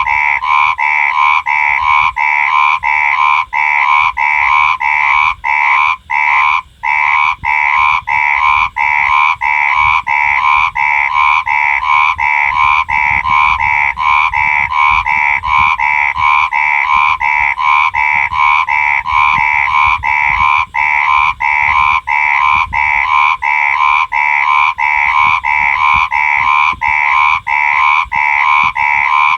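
Frog croaking over and over in a steady rhythm, about one and a half croaks a second, with a brief break about six seconds in.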